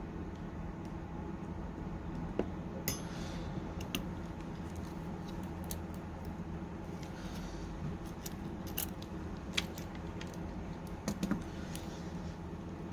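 Scattered small sharp clicks and taps of metal tools and small phone parts being handled during iPhone repair work, over a steady low background hum.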